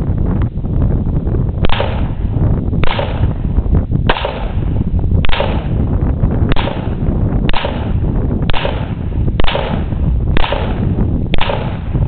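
Ten shots from an FN FNP-45 .45 ACP pistol, fired at a steady pace of about one a second, each a sharp crack with a short echo trailing after it.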